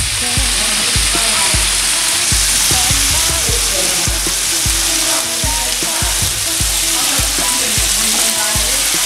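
Food sizzling and frying in a pan, with background music under it keeping a slow, steady beat of about one thump every 0.8 seconds.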